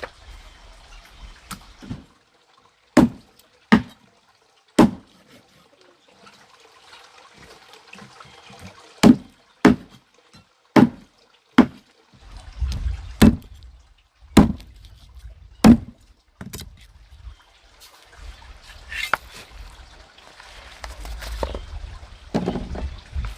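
Sharp knocks, about ten of them at irregular intervals, with trickling water in between.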